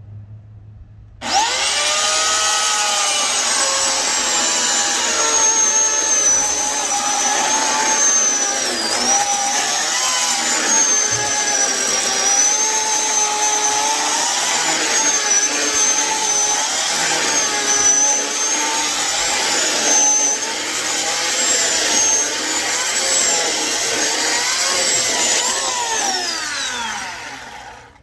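Electric chainsaw starting up with a sudden high whine and cutting through a log, its pitch dipping and wavering as the chain bites under load. Near the end the trigger is released and the motor winds down with a falling whine.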